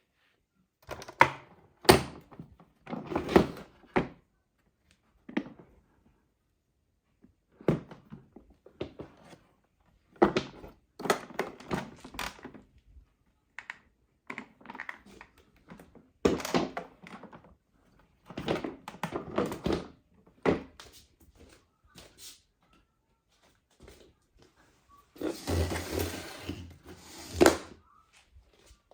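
Irregular knocks, clicks and clattering of hard objects being handled, with short pauses between them. The loudest and densest stretch comes about 25 to 27 seconds in.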